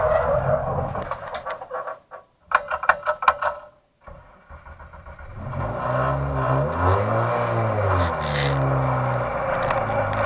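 Race car engine heard from inside the caged cabin: the engine sound dies away, a quick run of clattering and scraping follows, then the engine revs up, falls back and keeps running as the car slides across wet grass.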